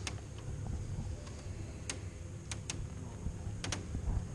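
Open cable-lift basket descending a volcano's rock shaft: a steady low hum with a handful of sharp metallic clicks at irregular intervals.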